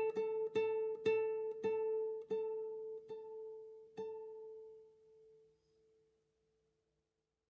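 Solo acoustic guitar fingerpicked, closing the piece: a repeated note plucked more and more slowly, the last pluck about four seconds in ringing out and fading to silence.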